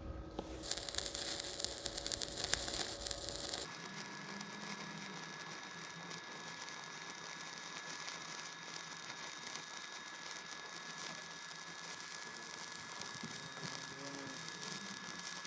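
Stick-welding arc of a Jasic NovoArc 200K inverter welder burning a 3.2 mm electrode on steel, heard sped up: a rough crackle that changes abruptly about four seconds in to a steadier hissing crackle, with a faint high steady whine.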